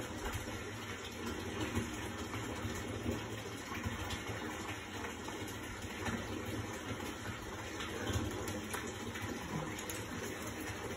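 Steady rush of water running from a tap into a bathtub.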